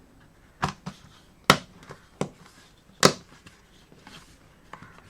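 Sharp plastic clicks and knocks, about five spread over a few seconds, the two loudest about a second and a half in and about three seconds in, as a laptop keyboard's plastic top plate is set down and fitted over its plastic studs.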